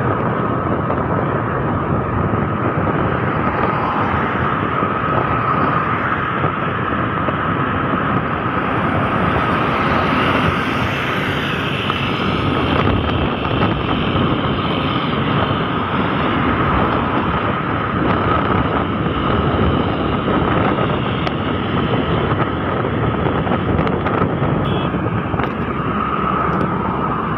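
Wind rushing over the microphone of a moving Honda scooter, mixed with the scooter's engine and tyre noise at a steady cruising speed, with a steady whine on top.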